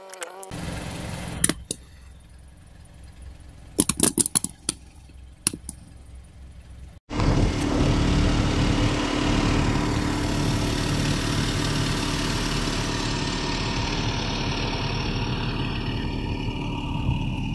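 A few sharp clicks and knocks, then about seven seconds in a car engine starts idling steadily and keeps running.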